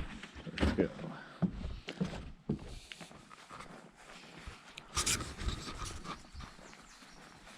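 Dog panting close to the microphone, quick breaths about two a second at first, then softer, with a louder scuffing burst about five seconds in.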